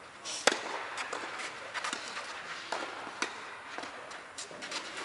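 Tennis balls struck by rackets during a doubles rally: a series of sharp pops in a large indoor tennis hall, the loudest about half a second in, with fainter hits between.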